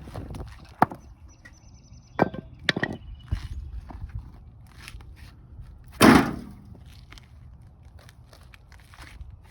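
Hand tool striking and prying up old asphalt blacktop: a handful of sharp knocks and scrapes, with one louder, longer crunch of breaking blacktop about six seconds in.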